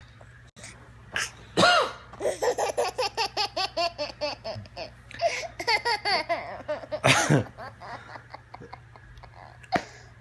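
Baby boy laughing in quick runs of pitched giggles, about four a second, set off by a man's coughs; a loud cough comes about seven seconds in.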